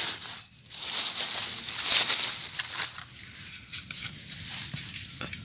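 A pointed digging tool scraping and crunching through dry, clumpy soil while a sweet potato is dug out: loud for about the first three seconds, then softer scratching with a few small clicks.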